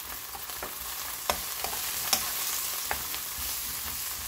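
Garlic scapes sizzling in oil and soy sauce in a nonstick wok as they are stir-fried with a spoon, a steady hiss broken by a few sharp taps of the spoon against the pan.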